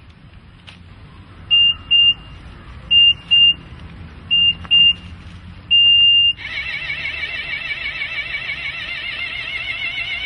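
Electronic warning beeps from a coin-operated spiked bench: three pairs of short high beeps and one longer beep, then a loud warbling alarm tone. It signals that the paid sitting time is over and the spikes are rising out of the seat.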